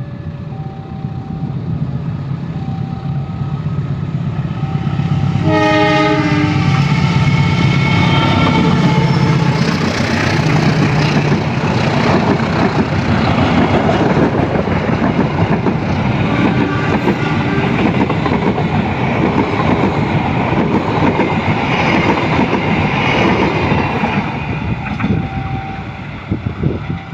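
Diesel passenger train approaching and passing close by. The locomotive's engine hum builds, then a loud horn blast comes about five or six seconds in, followed by the rumble and clickety-clack of the cars going by for about twenty seconds, fading near the end. A two-tone warning signal beeps in the first few seconds.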